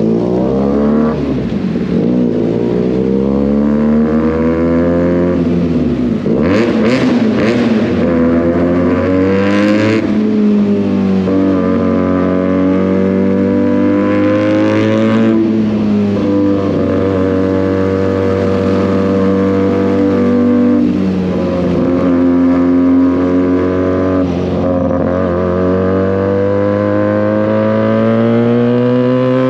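Benelli 302S motorcycle's 300 cc parallel-twin engine breathing through an SC Project aftermarket exhaust while riding: the note rises and falls repeatedly as the rider works the throttle and gears, then climbs steadily in pitch over the last several seconds.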